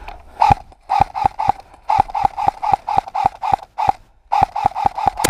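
Airsoft electric rifle (AEG) firing rapid single shots, about four to five a second, each a sharp click with a buzzing gearbox cycle. There are two strings, with a brief pause near the middle, about twenty shots in all.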